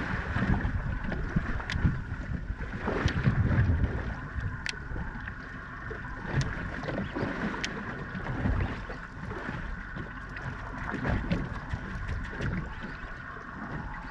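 Small boat at sea: water slapping against the hull and uneven wind rumble on the microphone, a little louder in the first few seconds, with a few scattered light clicks.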